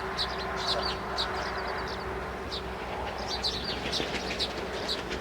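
Small birds chirping: a steady run of short, high chirps, several a second, with a faint steady hum underneath during the first two seconds.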